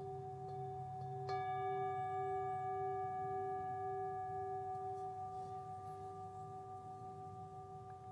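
Meditation background music: steady held tones over a low hum, with a bell-like tone struck a little over a second in that rings out slowly.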